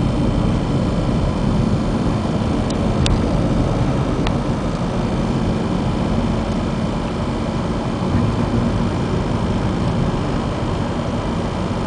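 Steady road and engine noise inside a car's cabin while driving on a snow-covered highway, with tyres and engine running at an even pace. A couple of faint clicks come about three to four seconds in.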